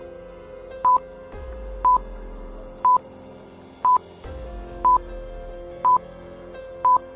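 Countdown timer beeping: a short, high beep of one pitch about once a second, over soft background music.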